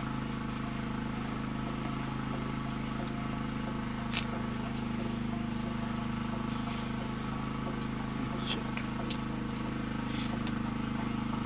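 A steady low mechanical hum, like a motor running at constant speed, with a few sharp clicks about four and nine seconds in.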